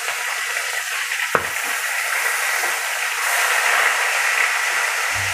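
Soy-marinated milkfish (bangus) slices frying in hot oil in a wok: a steady sizzle with spattering oil. One sharp click of metal tongs against the pan comes about a second and a half in.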